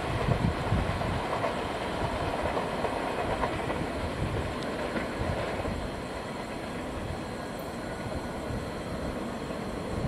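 Taiwan Railways train rolling past, a steady rumble of wheels on rail with a few heavier knocks about half a second in.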